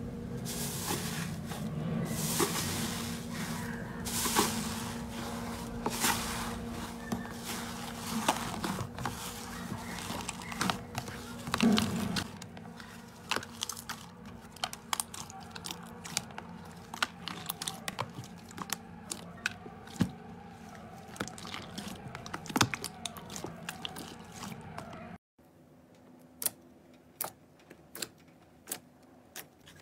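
Hands squishing and pressing slime, with many small crackles and pops. Near the end it turns quieter, with a few sharp pops as fingers press into the slime.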